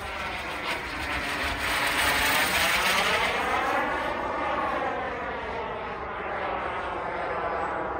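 Model F-16 jet's small turbine engine running as the plane flies past overhead, a rushing whine that swells to its loudest about two to three seconds in and then slowly eases off.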